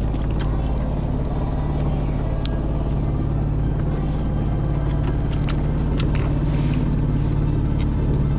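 An engine running steadily at constant speed, giving a low, even drone.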